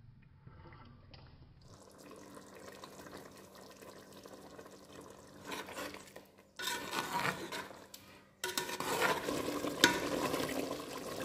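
Steel spatula stirring thick, simmering chicken curry in an aluminium pot: wet sloshing and scraping against the pot's side, quiet at first and louder from a little past halfway, with one sharp clink of the spatula near the end.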